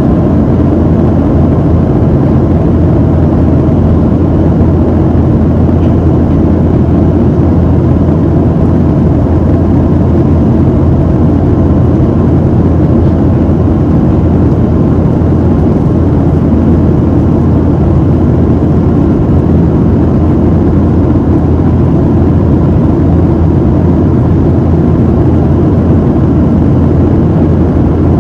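Steady low rumble of a Boeing 737-700's CFM56-7B jet engines and rushing air, heard inside the passenger cabin.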